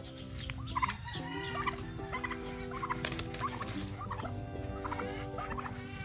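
Male turkey gobbling in short repeated warbling bursts while it attacks a rooster, over steady background music.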